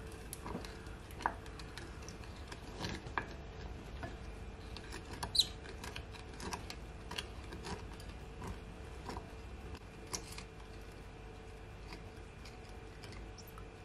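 Wooden spoon stirring sauce in a glass bowl, with irregular light clicks and taps of the spoon against the glass and one louder tap about five seconds in.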